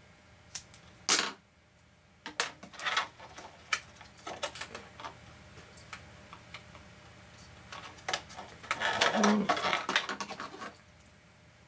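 A single sharp snip of scissors cutting double-sided sticky strip tape about a second in, then scattered clicks and crackles of a clear acetate sheet and tape being handled and pressed down, with a longer, louder stretch of crinkling plastic near the end.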